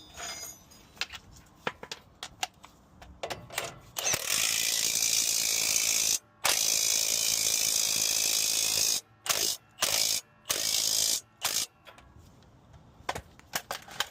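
A few sharp clicks of hand tools. Then a power ratchet runs steadily for about five seconds, with one brief break, and follows with several short bursts as it spins a fastener on the steering linkage.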